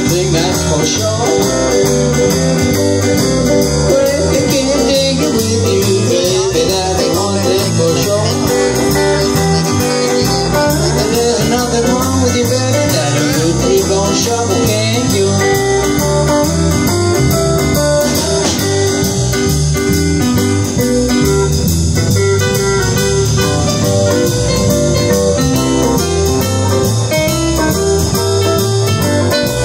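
Live blues band playing a shuffle, with electric guitars, bass, drum kit and keyboard.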